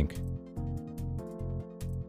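Background music: sustained chords over a pulsing bass line.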